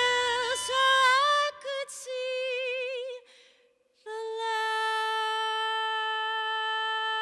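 A woman singing almost unaccompanied into a microphone: a wavering, ornamented line with faint backing for the first second and a half. After a brief pause she holds one long steady note.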